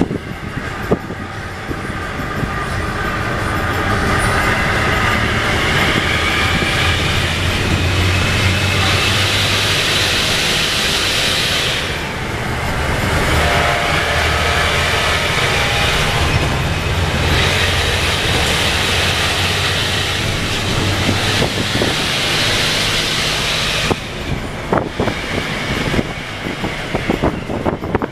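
Hino AK bus diesel engine with a 'jet' exhaust, heard from inside the cabin, pulling hard with a deep drone and a whine that climbs in pitch. It eases off about twelve seconds in, as at a gear change, climbs again, and drops away about 24 seconds in as the throttle is lifted.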